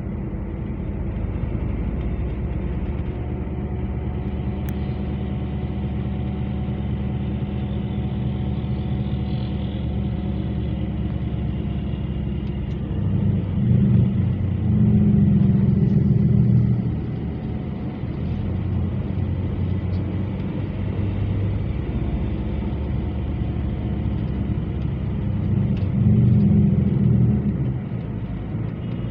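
Engine and road noise inside a moving coach bus's cabin: a steady low rumble that grows louder for a few seconds twice, around halfway and near the end.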